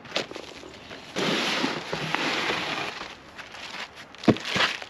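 Packing being pulled out of a cardboard box: styrofoam blocks scraping and plastic wrapping crackling in a dense stretch, with a sharp knock a little after four seconds in.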